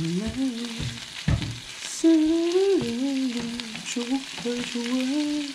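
Spicy braised pig's trotters sizzling in a frying pan as they are stirred with wooden chopsticks, the chopsticks giving a few light ticks. A low, sustained melody of a few long notes sounds over the frying.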